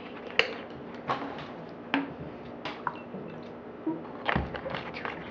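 Lemon juice being added to a cup of mixed juice, with a series of sharp clicks and taps from the bottle and cup being handled.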